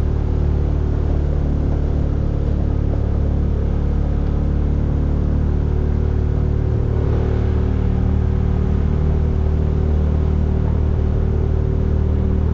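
Steady low engine and road drone of a vehicle being driven, heard from inside, with no change in speed.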